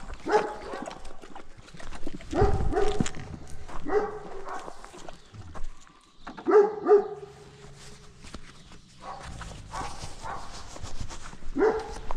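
Livestock guardian dog giving several short barks and yips, singly and in pairs, with pauses of a second or more between them.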